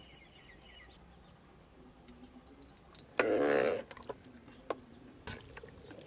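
Metal spatula stirring a pot of thick simmering khichuri, giving a few faint ticks and scrapes against the pot. About three seconds in, a brief, louder voice-like call breaks in.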